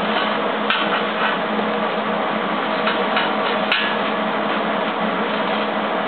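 MIG welding with a Millermatic 175 wire-feed welder (C25 shielding gas, .035" wire): the arc runs with a steady, dense crackle as a steel leg is welded to a steel base plate, with two sharper pops, one about a second in and one near four seconds.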